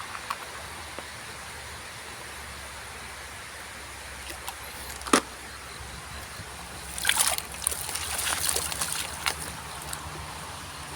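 Muddy plastic toy vehicles being handled and cleaned. One sharp click about five seconds in, then a couple of seconds of clattering, rustling handling noise over a steady hiss.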